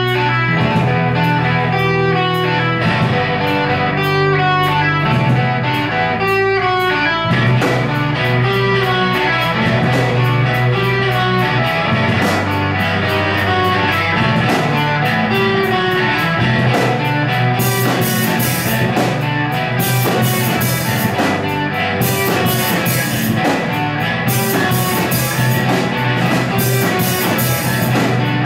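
Live rock band playing an instrumental passage: electric guitars over bass guitar and drum kit through amplifiers. The music gets brighter and busier about two-thirds of the way through.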